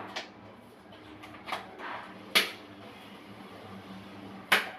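A few sharp knocks and taps from hands working at a porcelain toilet tank: two loud clacks about two seconds apart, with fainter taps before them.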